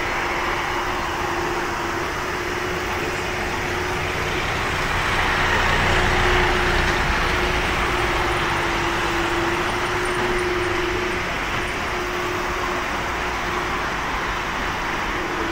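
Twin-engine jet airliner's engines at takeoff thrust as it lifts off and climbs away: a steady jet roar that swells to its loudest about six seconds in, then slowly eases as the aircraft recedes. A faint steady hum runs under it, breaking now and then.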